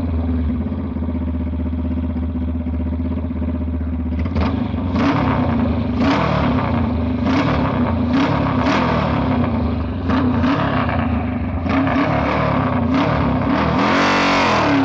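Motorcycle engine running steadily. From about four seconds in, a string of sharp cracks or pops comes every second or less, and the revs rise near the end.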